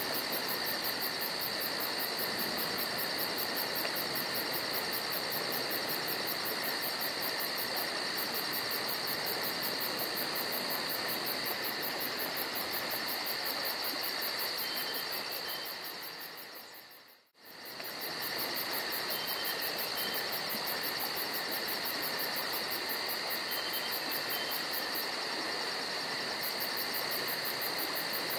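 A steady chorus of insects trilling, with rapid even pulsing high up, over a continuous rush of creek water. The whole sound dips away briefly just past halfway and then returns.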